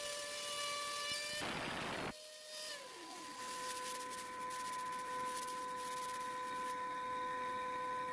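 CNC router spindle motor running with a steady high whine. About two seconds in there is a short noisy burst, after which the whine continues at a slightly lower pitch. Light rubbing strokes follow as sawdust is swept off the carved MDF board by hand.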